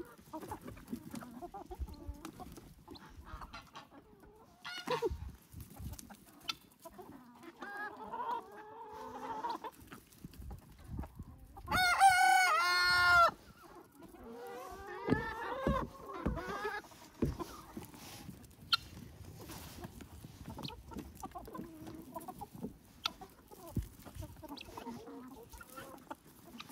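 A flock of chickens clucking and calling, with one loud rooster crow about twelve seconds in lasting a second and a half.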